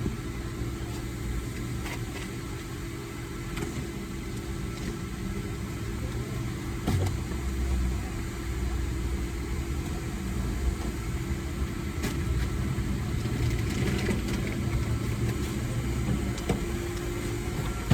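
Car engine running, a steady low rumble with a few light clicks and knocks.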